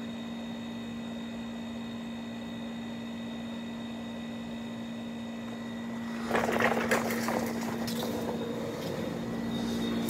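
Westinghouse Mobilaire 7000 BTU window air conditioner running, its compressor and fan giving a steady hum, heard from several feet back, where it is fairly quiet. About six seconds in, a louder rustling, scuffing noise comes in over the hum.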